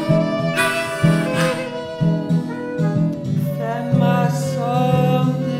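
Acoustic folk music: a guitar plays a steady plucked pattern under a long, slowly gliding bowed melody line.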